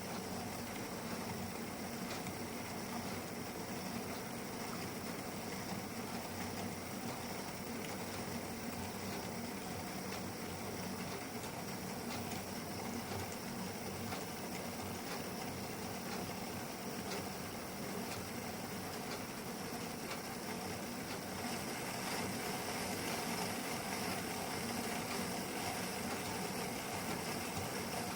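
Model locomotive's DCC sound decoder playing a steady engine idle through its small speaker, growing a little louder about three quarters of the way through.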